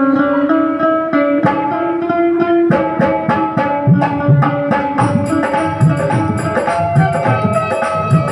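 Live devotional bhajan accompaniment: a held melody line stepping between notes over a steady hand-drum beat. About five seconds in, a fast high metallic ticking joins the rhythm.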